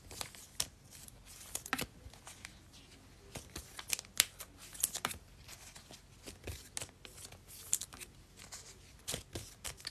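Trading cards and foil card-pack wrappers being handled: scattered soft crinkles and short clicks, spread unevenly through the stretch.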